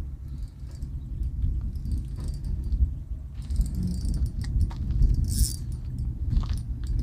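Wind buffeting the microphone as a continuous low rumble, with scattered light clicks and a brief high rattle about five seconds in.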